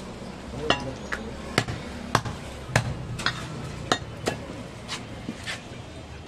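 A heavy curved butcher's blade chopping goat ribs on a wooden log chopping block: about ten sharp chops at an irregular pace of one or two a second.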